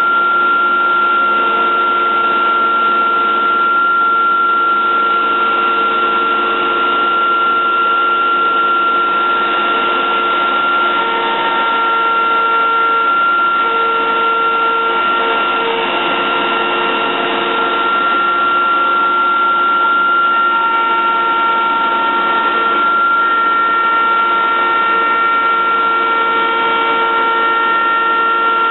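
Techno Isel CNC router spindle cutting panel profiles into MDF cabinet doors. It is a steady high whine over a rushing noise, with lower tones that come and go.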